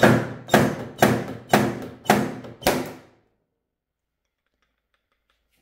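Steel Monk SMYK 330 g glue-pulling slide hammer struck six times in quick succession, about two a second, each stroke a sharp knock with a short ringing tail. The sliding weight hits its stop to pull a hot-glued mushroom tab on a car's sheet-metal panel, a paintless dent repair pull.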